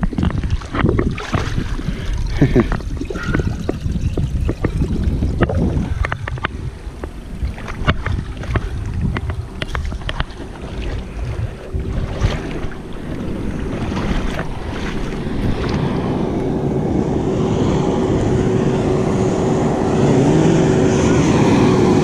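Scattered knocks over a rough rushing noise with wind on the microphone. From about halfway a motorboat's big engine drones in, holding one steady pitch and growing steadily louder as it approaches.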